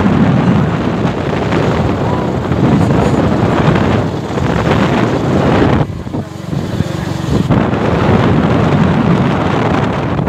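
Wind buffeting a phone's microphone on a moving motorcycle: a loud, rough rushing that drops back for a moment about six seconds in.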